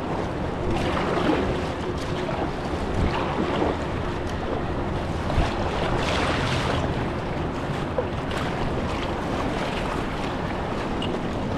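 Moving river water rushing around a kayak, a steady wash that swells a few times, with wind buffeting the microphone.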